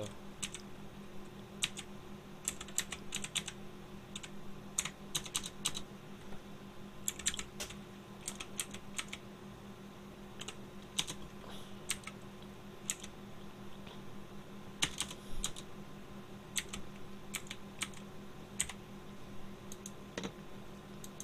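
Computer keyboard keys being typed in short, irregular clusters of clicks with pauses between them, over a steady faint hum.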